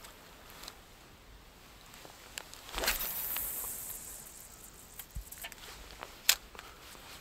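Faint handling sounds from an angler spin-fishing in a boat: a brief rustling hiss about three seconds in, then a few light clicks and knocks, the sharpest near the end.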